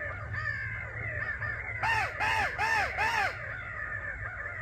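Crows cawing: a quick run of four loud, arched caws about two seconds in, over fainter cawing throughout.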